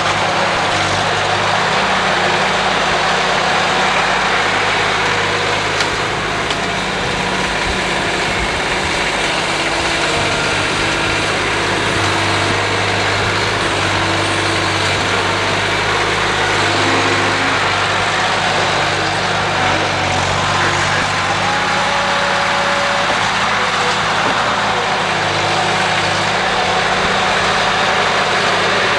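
Engine of a snow-plowing vehicle running steadily, its pitch shifting a few times.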